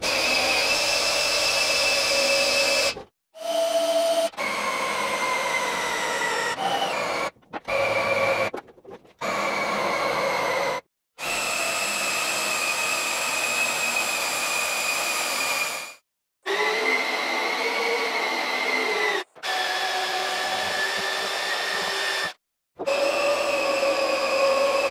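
About nine short sped-up clips of motorised tools, each a steady high whine that cuts off abruptly, with the pitch changing from clip to clip. The first clip is a Makita cordless drill turning the table's elevation reduction gear, which drives the lift through chains, sprockets and screw shafts.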